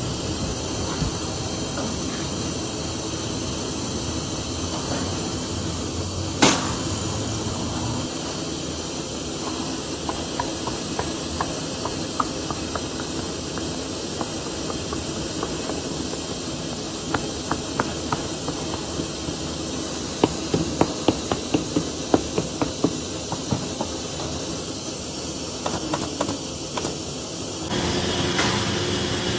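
Hammer tapping a precured rubber tread strip down onto a truck tyre casing during retreading: a run of light, quick knocks, thickest about two-thirds of the way through, over a steady workshop hiss. One sharper knock comes about six seconds in, and near the end the background noise gets louder.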